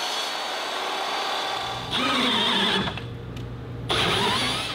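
Skilsaw sliding miter saw cutting an aluminum extrusion, a steady noisy whine. About two seconds in, a cordless drill runs in two short bursts as it drives a tap to thread the center hole of the extrusion.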